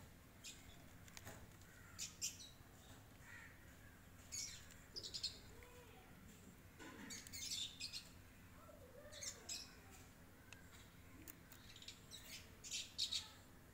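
Birds chirping and calling on and off in short, high-pitched bursts every second or two, faint overall.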